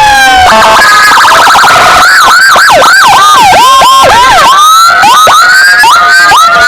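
Loud electronic emergency siren changing patterns: a falling wail, then a fast warble, then a run of swooping yelps, about two or three a second, ending in rising sweeps.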